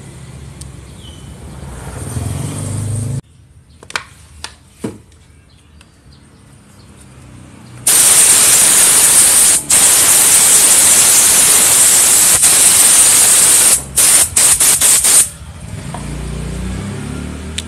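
DG-10 compressed-air blow gun blasting air over a motorcycle's oil filler cap and dipstick to clean the oil off: a loud steady hiss from about eight seconds in, broken once briefly, ending in a few short bursts. Before it, a low hum for about three seconds, then a couple of clicks.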